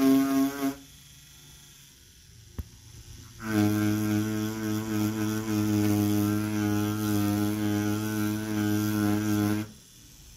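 Ez Dagger V2 short pen rotary tattoo machine running with a steady hum. It stops less than a second in, a single click sounds about two and a half seconds in, and the machine starts again a second later at a lower pitch, running for about six seconds before stopping.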